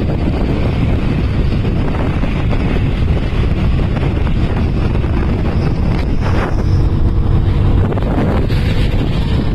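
Steady, heavy wind rumble on the microphone of a camera moving along a road, over the running of motorcycle and scooter engines.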